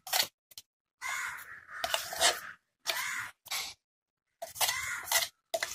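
A hand scraping thick, wet batter out of a stainless-steel mixer-grinder jar into a steel bowl, in several short bursts with brief silent gaps between them.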